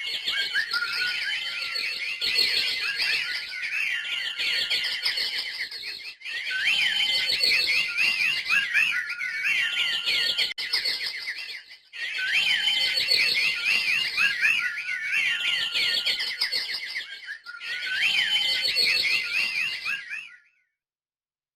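Small birds chirping and twittering in a dense stream of rapid high notes that slide up and down, with brief breaks about six and twelve seconds in. It cuts off suddenly near the end.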